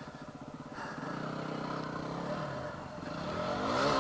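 Yamaha WR250R's single-cylinder four-stroke engine idling with an even, rapid pulse, then revving up near the end.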